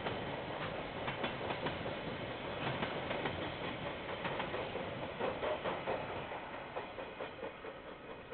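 Railway wagons rolling past, their wheels clicking and clacking irregularly over the rail joints above a steady rumble. The sound grows fainter over the last few seconds as the train passes. It is heard through a security camera's microphone, which cuts off the higher sounds.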